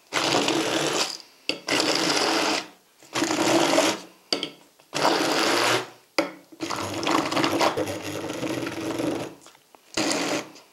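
Electric immersion blender puréeing chunks of raw meat in a glass bowl. It is switched on and off in six separate runs of about one to three seconds each.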